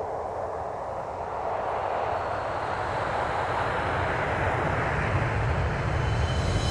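Intro sound effect: a rushing, wind-like swell that builds steadily, with a deep rumble growing over the last couple of seconds and a hit with ringing tones right at the end.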